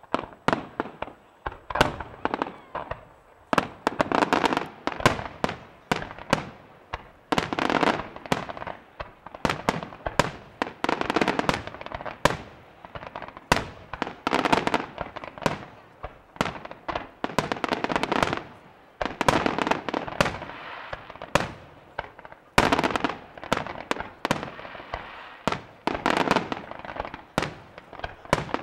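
Fireworks display: aerial shells and low-level effects bursting in a dense, near-continuous barrage, many sharp bangs a second, overlapping and each trailing off.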